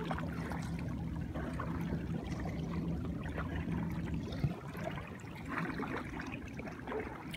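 Gentle water lapping and trickling around a kayak on calm water, picked up through a GoPro's waterproof case, with a faint steady low hum for about the first four seconds.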